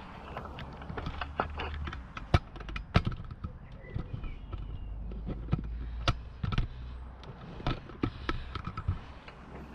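Camera handling noise: a string of sharp knocks and clicks over a low rumble as the camera is moved and set down on the patio, the loudest knocks about two and three seconds in.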